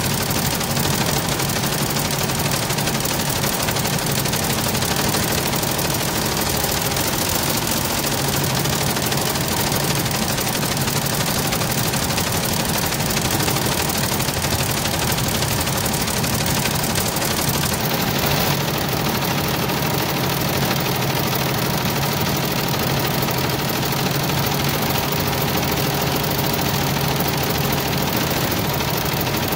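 Multi-needle commercial embroidery machine stitching: a steady mechanical clatter with a low hum, unbroken throughout.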